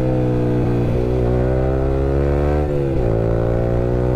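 Yamaha R15 V3's single-cylinder engine running through an Akrapovic R9 aftermarket exhaust while riding, the revs climbing slowly under throttle. About two and a half seconds in the revs drop briefly, then build again.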